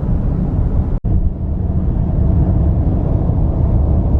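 Steady low rumble of road and engine noise inside a car's cabin while driving, cutting out for a moment about a second in.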